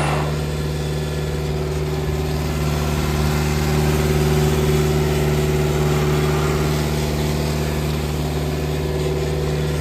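Mitsubishi 2650 tractor's diesel engine idling steadily.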